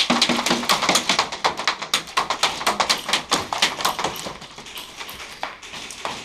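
Airsoft guns firing, a dense clatter of rapid shots that starts abruptly and stops abruptly near the end.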